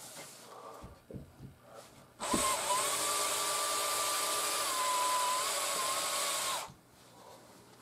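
Cordless drill spinning a screw in overhead ceiling trim. Its motor starts about two seconds in, runs at a steady speed with a steady whine for about four seconds, then stops suddenly. A few light handling clicks come before it.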